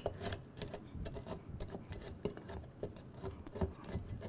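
A wooden spoon pounds and crushes Oreo cookies soaked in milk at the bottom of a glass jar, making soft, irregular taps several times a second.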